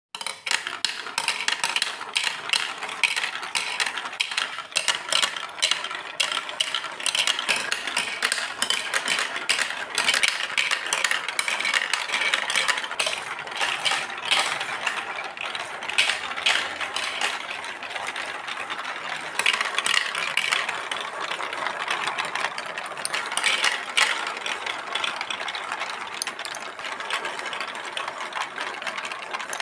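Many marbles rolling and clattering down a track built of Lego Duplo plastic blocks, a dense, continuous run of small clicks and knocks.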